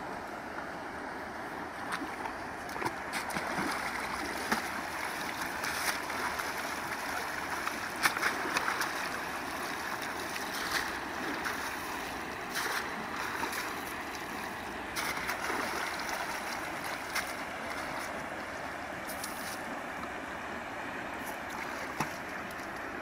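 Steady rush of a shallow, fast-flowing river, with scattered short splashes and knocks as a woman wades and works a hand net in the water.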